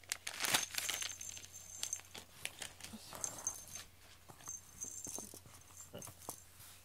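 The small bell on a feather cat-teaser wand tinkles in several short bursts as the wand is moved about, with scattered small clicks. Plastic packaging rustles near the start as the toy is pulled out.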